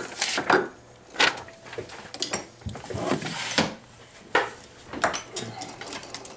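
Handling noise at a jeweller's wooden workbench: several short knocks and clicks as tools and objects are moved, with rustling between them.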